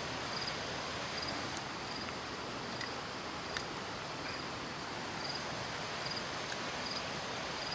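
Insect chirping in short, high-pitched pulses that repeat about once a second, over a steady hiss of outdoor background noise.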